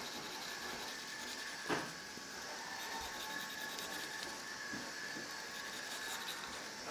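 Graphite pencil scratching on paper in quick short shading strokes, over a steady background hiss, with one short knock about two seconds in.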